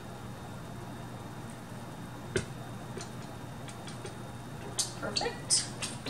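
A ladle and a plastic debubbler tapping and clinking against a glass canning jar and a pot while the jar is topped up with au jus: one tap about two seconds in, then a quick run of clinks near the end, over a steady low hum.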